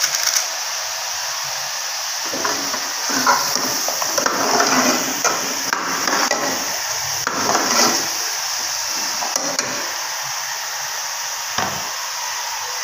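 Metal ladle stirring and scraping in an aluminium cooking pot of chicken and potato curry, clinking against the sides for several seconds, then a single knock near the end, over a steady high hiss.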